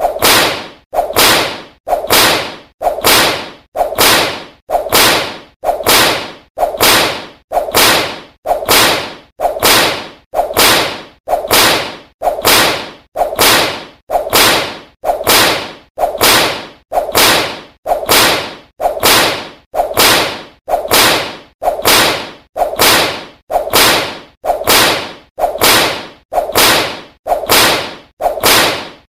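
Whip lashes in a steady, unbroken series, one sharp crack about every second, each trailing off before the next.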